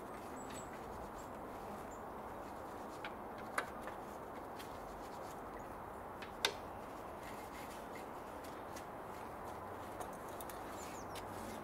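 A few small clicks and taps as a car door speaker is handled and seated in its mount in the door, over a steady background hiss; two sharper clicks stand out, about three and a half and six and a half seconds in.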